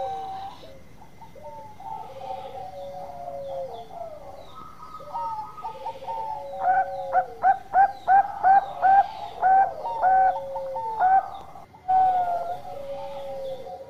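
Zebra dove (Bangkok-type perkutut) cooing: long drawn-out coos that slide down at the end, with a quick run of short clipped notes, about three a second, in the middle.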